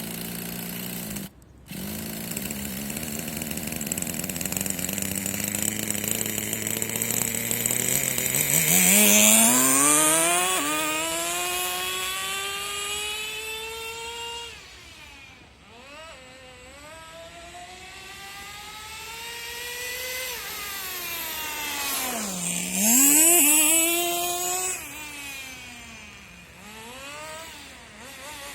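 Small two-stroke nitro glow engine of a Tamiya TGM03 Wild Commando RC car, turned over by its built-in starter: a steady note that cuts out for a moment near the start and resumes. About eight seconds in the engine revs up with a rising pitch, then falls back and is revved up and down several more times.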